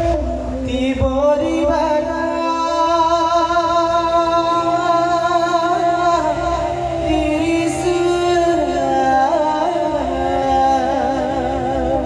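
Dance accompaniment music with a voice singing long, wavering held notes that slide between pitches over a steady low drone.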